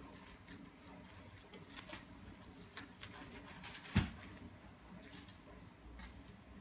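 Crinkling and scratching of a plastic-wrapped sanitary napkin as an Abyssinian kitten paws, bites and bats it over a wooden floor, in quick irregular rustles. One louder thump about four seconds in.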